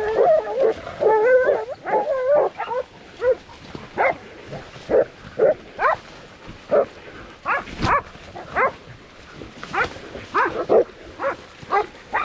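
Hunting dogs barking and yelping: a wavering, whining cry for the first few seconds, then single short barks about once a second.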